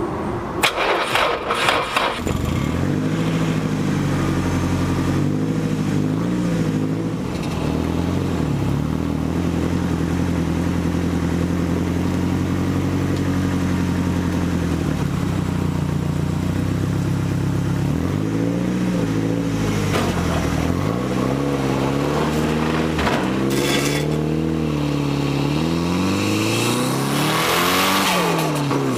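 Nissan S14 Silvia's turbocharged SR20DET four-cylinder engine heard from inside the cabin, pulling through the gears: the revs climb and drop with each shift, hold steady at a cruise through the middle, then climb and fall again several times near the end. A few loud clatters come in the first two seconds.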